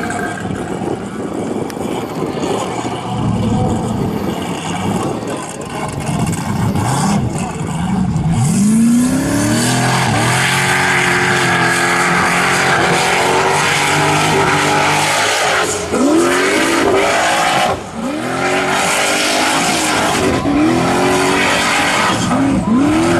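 Formula Offroad hillclimb car's V8 engine running at lower revs for the first several seconds, then going to full throttle about a third of the way in. The revs then surge up and drop back again and again, with two brief lifts off the throttle, over a loud hiss.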